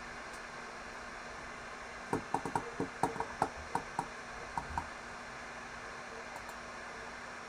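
Quick, irregular run of about a dozen light clicks on a computer keyboard, lasting about three seconds, over a steady hiss.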